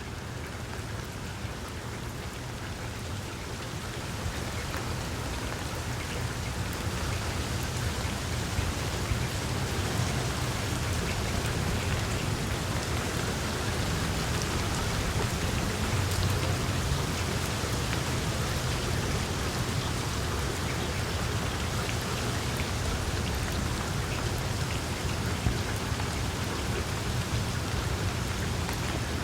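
Steady rain falling, growing heavier over the first several seconds and then holding even, with a low rumble underneath.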